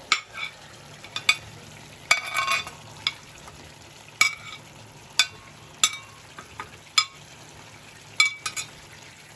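A spatula knocking and scraping in a pan as chicken pieces and potatoes are stirred while they fry, with a low steady sizzle underneath. There are about ten sharp clinks spread through, several close together a little after two seconds in.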